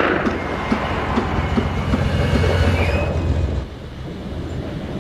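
Heavy tank's tracks clanking and squealing over a deep engine rumble, easing off about three and a half seconds in.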